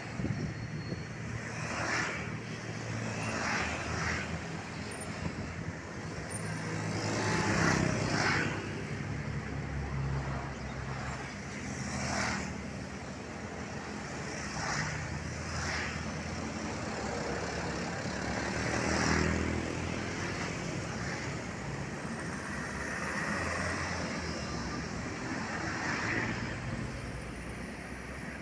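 Road traffic: motorcycles and cars, with a minibus and a light truck among them, driving past one after another. Engine and tyre noise swells as each vehicle goes by, loudest about eight seconds and nineteen seconds in.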